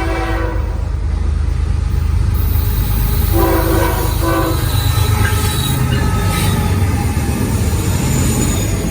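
Norfolk Southern train's diesel locomotive horn: a blast ending just after the start, then two short blasts about three and a half seconds in, over the steady low rumble of the locomotives and cars passing.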